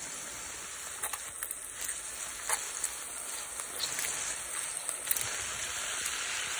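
Food sizzling in a frying pan while a spatula stirs it, a steady hiss broken by a few sharp clicks and scrapes of the spatula against the pan.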